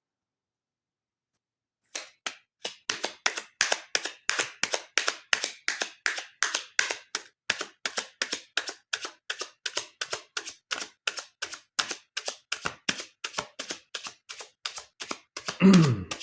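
Tarot cards being shuffled by hand: a steady run of sharp card snaps, about three a second, starting about two seconds in, with a louder, duller knock just before the end.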